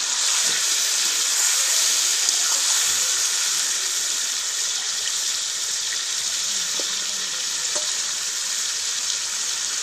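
Mutton pieces sizzling steadily in hot oil in an iron karahi, with a few light knocks of a metal spatula stirring them.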